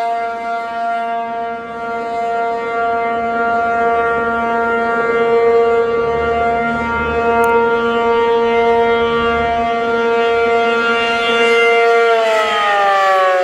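ACA P-50 tornado warning siren sounding the steady Alert signal in a test, holding one pitch with many overtones. About twelve seconds in the pitch starts to fall as the siren winds down.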